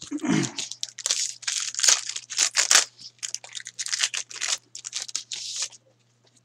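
Foil wrapper of a hockey card pack being torn open and crinkled by hand: a quick run of short crackly rips and rustles that stops near the end.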